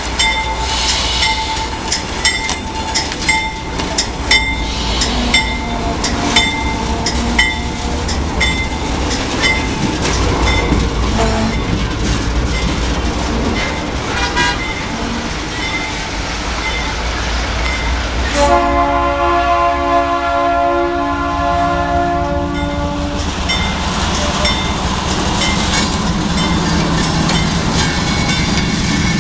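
GE C39-8 diesel locomotive moving slowly at street level, a bell ringing repeatedly in the first several seconds. About 18 seconds in comes one long horn blast lasting roughly four seconds. Its 16-cylinder diesel engine then runs loudly as the locomotive passes close by.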